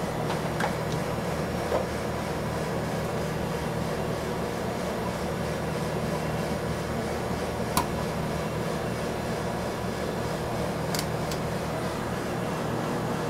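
Steady hum of running machinery, with a few light clicks, the sharpest about eight seconds in.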